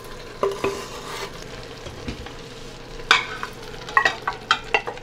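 Tomato wedges dropping into an electric pressure cooker's hot stainless inner pot and sizzling on browned ground beef. From about three seconds in, a wooden utensil stirs and knocks against the pot in quick sharp clicks and scrapes.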